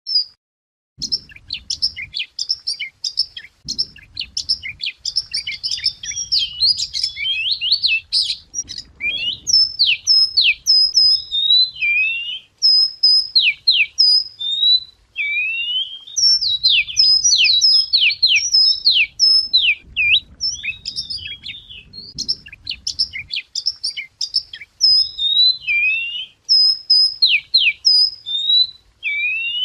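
Chìa vôi songbird singing a long, varied song of clear whistled notes, rising and falling sweeps and looping phrases, with short pauses between phrases: a recording used as a lure song for calling birds in. A low background rumble comes and goes under the song.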